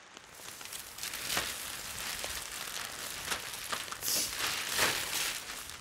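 Plastic greenhouse film crinkling and rustling as a muddy sheet of it is handled and pressed against a polytunnel, in a string of short crackles that are loudest a little past the middle.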